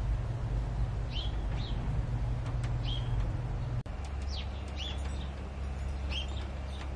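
Small garden birds chirping: short, falling chirps repeated every half second or so, over a steady low rumble. The sound drops out briefly about four seconds in, and the rumble changes after it.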